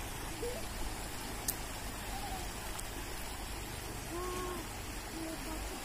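Shallow river water rushing and splashing over stones, a steady hiss. A few faint short calls are heard in the distance.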